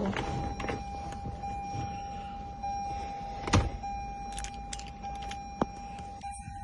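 Scattered clicks and taps of keys and tools being handled inside a car, over a faint steady high tone; the sharpest click comes about three and a half seconds in.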